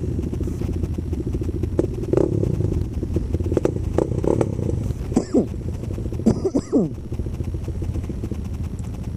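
Several quad bike engines idling with an even low rumble, with a few sharp knocks and, about five seconds in and again a second later, short sounds that drop quickly in pitch.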